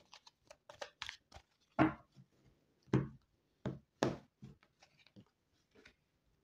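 A tarot deck being handled: irregular clicks and taps of cards being shuffled and dealt onto a cloth-covered table, with louder thumps about two, three and four seconds in.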